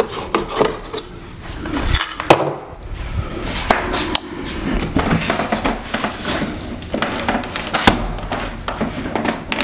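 Scattered knocks, clicks and rattles from a TV on an articulating wall mount and its cables being handled and adjusted, with a sharp knock about two seconds in and another near the end.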